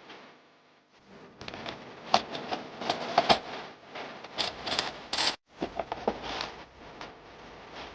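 Handling noise: a run of irregular sharp clicks and scrapes, loudest about two and three seconds in, with a brief total cutout a little past the middle.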